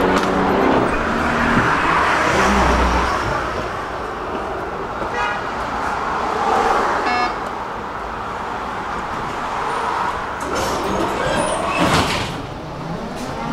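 Tram in motion, heard inside the passenger cabin: a steady rumble of wheels on rails and running gear. There are two short beeps about five and seven seconds in, and a rising whine of the traction motors near the end as the tram speeds up.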